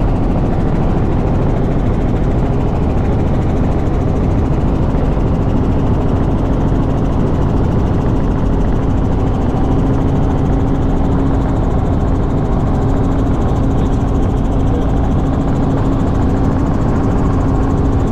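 Cabin noise of a Robinson R66 turbine helicopter in flight: a loud, steady rotor and engine drone with a constant low hum.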